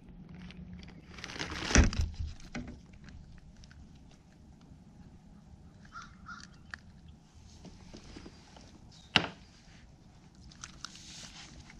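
Handling noise as a yellow perch is unhooked aboard a kayak: a thump about two seconds in, a sharp knock near the end, and scattered small clicks and rustles. A bird calls twice in the background midway.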